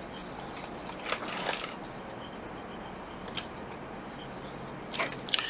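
Small handling noises on a workbench: a short scraping rustle about a second in, a sharp click a couple of seconds later, and a few more clicks near the end, over a faint steady hiss.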